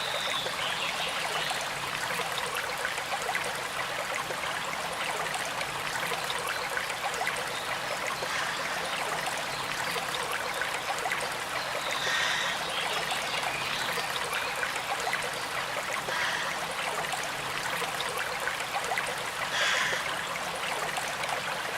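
River water flowing and trickling steadily, with a few brief bird calls standing out now and then.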